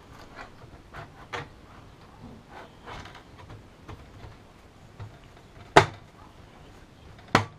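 Handling noise from an NZXT H440 PC case being moved about: light clicks and taps, then two sharp knocks about a second and a half apart near the end.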